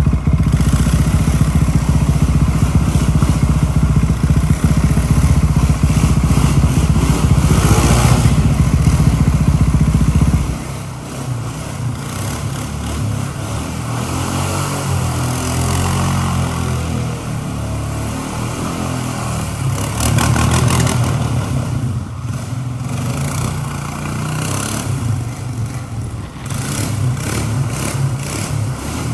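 Four-wheeler ATV engine revving hard under load as it spins donuts on a wet concrete floor. About ten seconds in, the sound drops in level, and the engine goes on with revs rising and falling.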